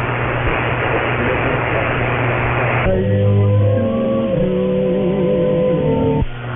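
Radio audio relayed over a VLF link, muffled and cut off above the upper mids, as is all of its sound. For about three seconds it is a noisy hiss with a steady hum. Then a few seconds of guitar music come through clearly before cutting off abruptly back to the hiss and hum.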